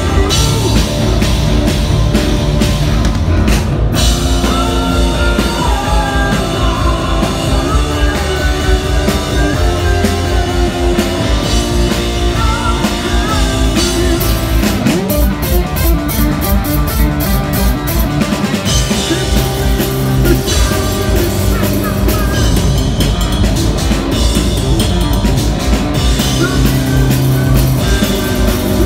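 Rock band playing live: driving drum kit and distorted electric guitar, with a male voice singing over them, recorded at a concert.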